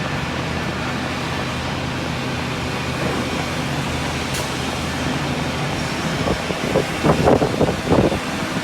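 Woodworking CNC drilling and milling machine running with a steady motor hum. Louder, uneven bursts come in over about the last two and a half seconds.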